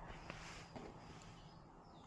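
Near silence: faint room tone with a low steady hum, and a few faint ticks in the first half second.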